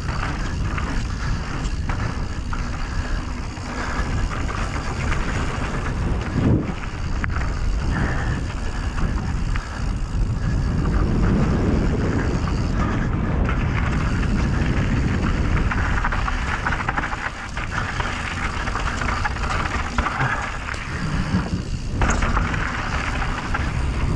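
Mountain bike running fast down a dirt trail: steady wind rush over the microphone, with tyre noise and frequent knocks and rattles as the bike hits bumps.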